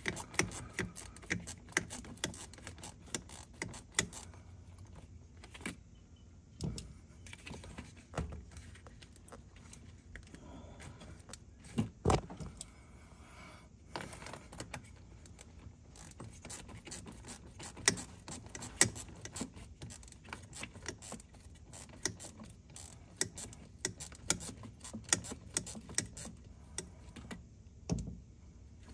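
Stubby ratchet with a 7mm socket clicking in quick runs as it backs off a worm-drive hose clamp on the charge tube, with pauses and a few louder knocks.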